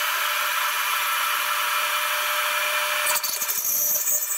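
Home-made CNC machine's router spindle running at 19,500 rpm, its small cutter milling a slot through aluminium plate at a 450 mm/minute feed: a steady, high-pitched cutting noise that turns sharper and hissier near the end.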